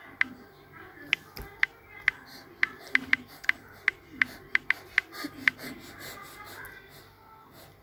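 Key taps on a smartphone's on-screen keyboard as a word is typed: a quick, irregular run of sharp ticks, about three a second, that stops about five and a half seconds in.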